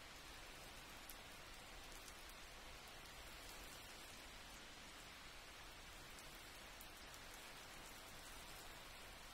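Near silence: a faint, steady hiss with a few light ticks.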